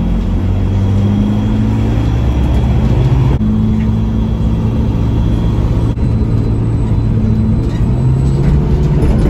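City bus engine running under way, heard from inside the cabin, its note rising and falling with speed and changing abruptly twice.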